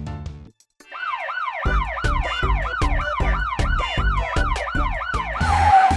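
Cartoon police car siren: a fast, repeating falling wail, about three sweeps a second, starting about a second in, over a steady music beat, with a burst of hiss near the end.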